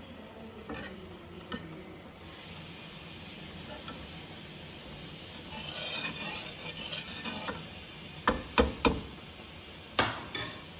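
Metal utensils stirring a thick lentil-and-greens stew in a steel pot, with soft scraping. Near the end come five sharp metal clinks against the pot, three in quick succession and then two more.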